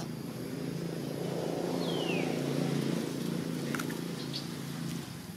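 A steady low hum, like a motor running, with a short high squeak falling in pitch about two seconds in.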